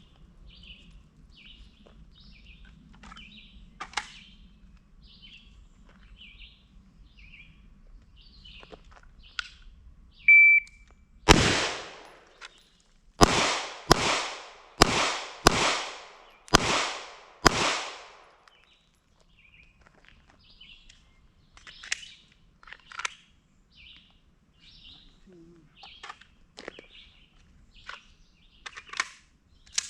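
A short electronic beep, likely a shot timer's start signal, then about seven gunshots fired over some six seconds, the first two with a pause between them and the rest in quick succession. Birds chirp throughout.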